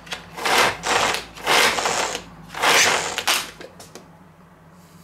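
Manual food chopper worked three times in quick succession, each stroke just under a second as its blades spin through chopped white onion in a plastic bowl. The last stroke ends about three and a half seconds in.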